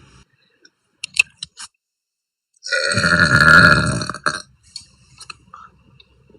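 A young woman's long, loud burp lasting about a second and a half, starting nearly three seconds in. It is preceded by a few short clicks.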